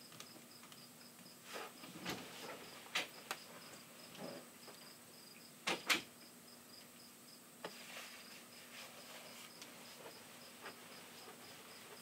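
Crickets chirping in a regular, steady pulse, with scattered soft knocks and clunks over it; the loudest is a pair of knocks about six seconds in.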